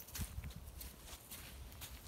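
Faint footsteps on wet mud and slushy snow, soft irregular steps about every half second.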